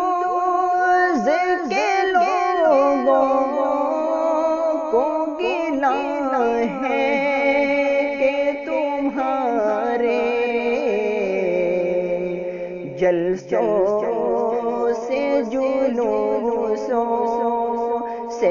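A solo voice singing an Urdu nazm (a sorrowful devotional poem) to a slow melody, with long, bending notes.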